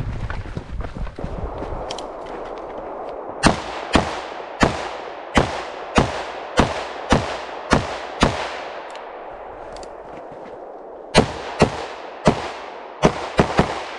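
Rifle fired in aimed single shots, each with a short echo. Nine shots come at roughly two-thirds of a second apart, then a pause of about three seconds, then six more, the last few in quick succession. Wind and movement noise on the microphone come first as the shooter moves into position.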